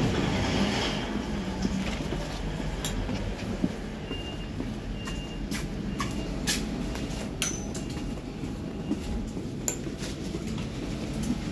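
Interior noise of a DB Class 425 electric multiple unit: a steady low rumble with scattered clicks and knocks, and a faint high whine that comes and goes midway.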